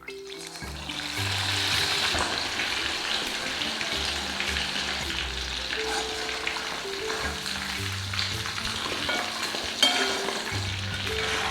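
Food frying in hot oil in a pan, sizzling steadily after swelling up in the first second, while it is stirred, with a sharp knock of the utensil near the end. Soft background music plays underneath.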